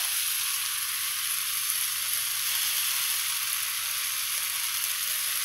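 Steady sizzling of a wok stir-fry as mung bean sprouts are added on top of fried tofu and oyster mushrooms.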